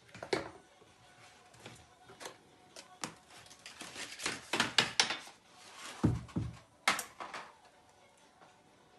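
Clatter and knocks of a stunt scooter's metal handlebar and deck being handled and fitted together, a string of sharp clicks with two dull thumps around six seconds in.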